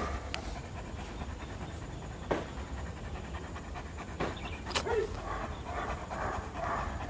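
German Shepherd dog panting with its mouth open, in a steady rhythm of breaths, with a few faint clicks.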